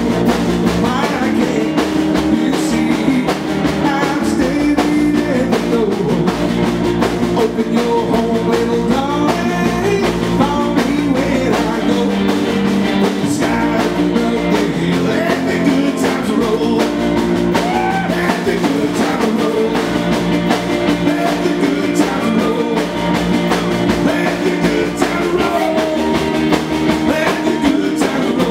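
Live rock and roll band playing: upright double bass, electric guitar and drum kit, with a man singing into a microphone over them.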